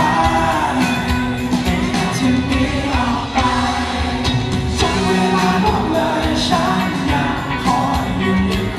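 A band playing a song live on stage, with a lead vocalist singing the melody over the full band.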